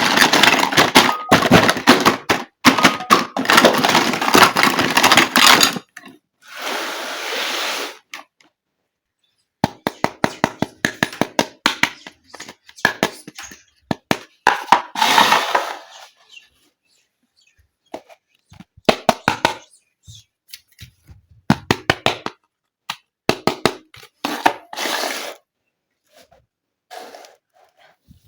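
Plastic toy kitchen pieces and packaging being handled: a dense stretch of rustling and clattering for the first six seconds, then many separate small clicks and taps with short bursts of rustling.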